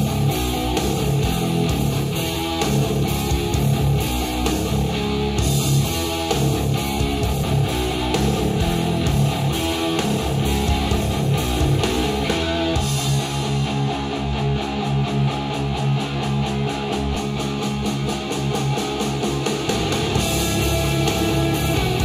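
Music played in turn through a pair of Focal Alpha 50 EVO and a pair of APS Klasik 2020 studio monitor speakers, picked up by microphones in the room.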